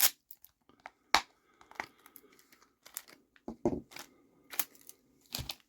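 Plastic toy packaging being handled and opened: irregular crinkles, crackles and small plastic clicks, about half a dozen sharper ones among fainter rustling.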